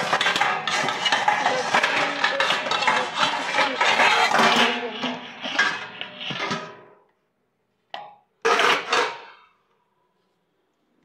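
Dishes and utensils clattering and clinking as they are handled, a dense run that fades out after about six seconds, then two short clatters near the end.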